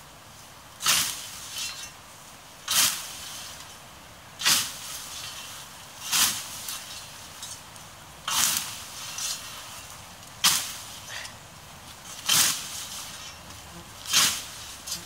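A scythe swung through tall grass, each stroke a sharp swish of the blade cutting the stems with a softer rustle after it, eight strokes at a steady pace of about one every two seconds.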